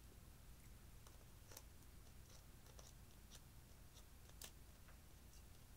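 Faint scattered clicks and scrapes of a small metal spatula digging lipstick out of its plastic tube over a glass dish, with two sharper clicks, about a second and a half in and after four seconds.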